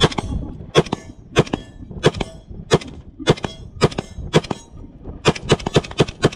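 Semi-automatic rifle shots fired in a steady string, about a dozen of them, roughly one every half second or so, coming faster in a quick run of shots near the end.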